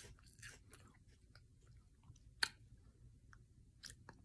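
A person chewing a bite of caramel-filled apple close to the microphone: soft, wet mouth clicks and smacks, the sharpest about two and a half seconds in.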